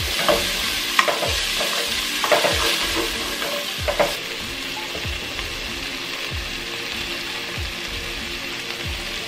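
Diced onions sizzling in melted butter in an enamel pot, cooking down to soften. For the first four seconds or so a spoon scrapes and knocks against the pot as they are stirred; then there is only a steady sizzle.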